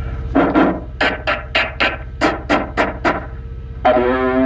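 A voice repeating short counting syllables into a CB microphone, heard back through the radio's PA with an echo effect, followed near the end by a steady buzzy electronic tone about a second long. A diesel truck engine idles underneath.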